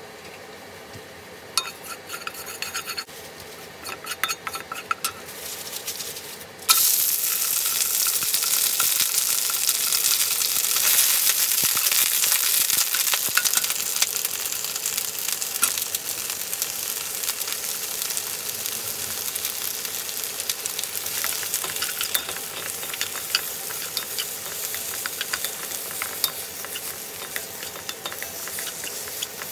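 Oil heating in a non-stick wok starts to crackle and spit. About seven seconds in, green vegetables hit the hot oil with a sudden loud sizzle, which keeps going while a wooden spoon stirs them, with many small clicks and taps.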